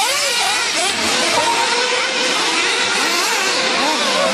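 Several 1/8-scale off-road nitro buggies racing at once, their small two-stroke glow engines whining and constantly rising and falling in pitch as they rev up and ease off.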